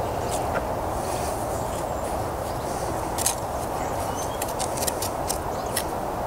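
A steel bricklaying trowel working mortar on top of a brick pier, with a run of short scrapes and taps in the second half over a steady outdoor background hiss.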